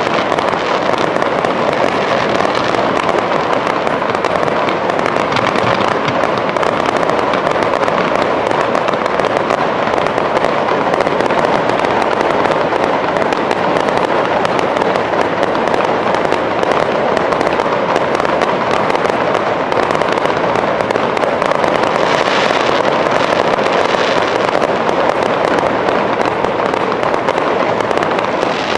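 Fireworks display going off without a break: a dense, steady crackling and popping of many shells at once. It turns brighter and hissier for a couple of seconds about three-quarters through.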